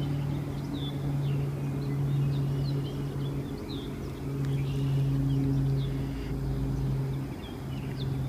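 Small birds chirping with many short, repeated calls over a steady low machine hum.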